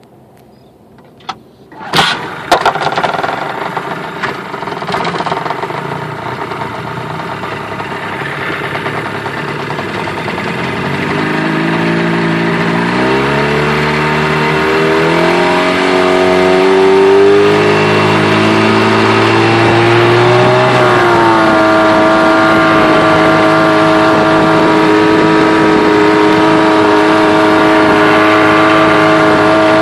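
Mercury 25 hp two-stroke outboard starting with a sharp bang about two seconds in and running. It then opens up, climbing in pitch in steps between about 11 and 17 seconds, and holds a steady high-revving note at full throttle, with the rush of the wake under it.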